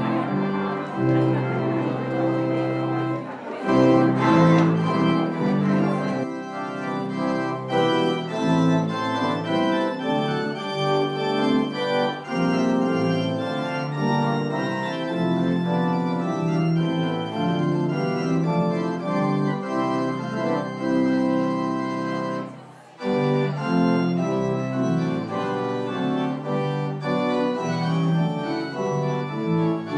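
Church organ playing a postlude in held chords after the dismissal, with a brief break about three-quarters of the way through before it goes on.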